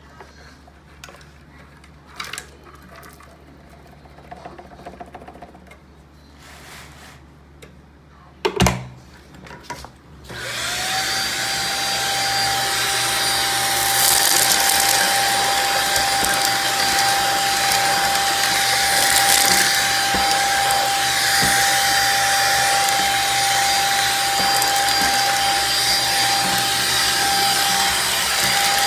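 A few light handling clicks and one loud knock, then a Shark vacuum cleaner switches on about ten seconds in. Its motor whine rises quickly to a steady pitch, and it keeps running with a steady rush of suction.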